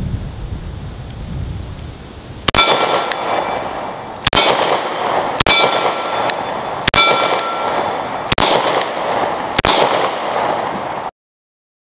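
Kahr CM9 9mm pocket pistol firing six shots, about one and a half seconds apart, each followed by a ringing decay. The sound cuts off suddenly near the end.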